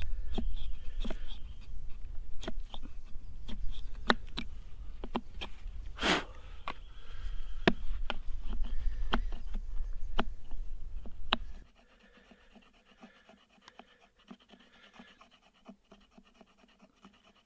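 A knife blade carving a wooden stick in repeated downward strokes, each one a short crisp cut, about two a second. A low rumble runs under the first part and stops abruptly about twelve seconds in; after that the strokes go on much more faintly.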